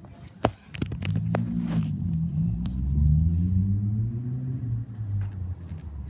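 A sharp crack about half a second in and a few lighter clicks, then the low hum of a passing motor vehicle's engine for about four seconds, its pitch rising and then falling.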